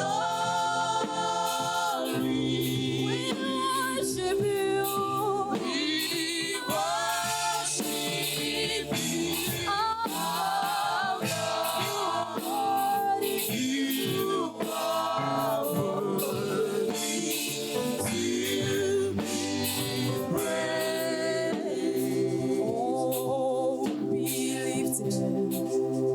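Church choir singing a gospel praise worship song, with held and sliding sung melody lines throughout.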